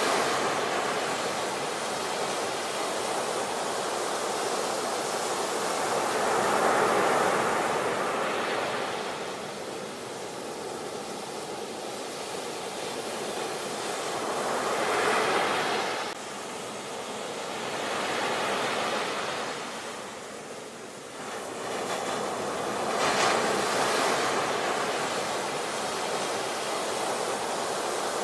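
Ocean waves breaking and washing up a beach, as a steady surf noise that swells into a louder surge about every eight seconds.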